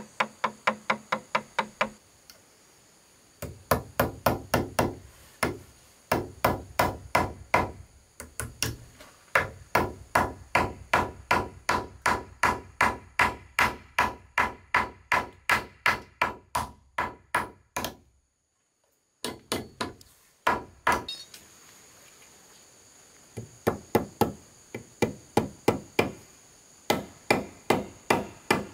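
Hammer blows struck in steady runs of about two to three a second, with short pauses between runs and a brief full gap about two-thirds of the way through.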